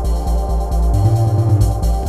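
Electronic dance music as a soundtrack: a steady fast kick-drum beat, about four a second, under sustained organ-like synth chords, with a short break in the beat about a second in.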